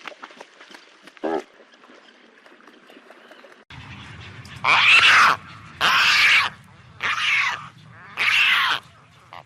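Pelican calls: one short low call about a second in, then four loud harsh squawks of about half a second each, roughly one a second, over a low steady rumble.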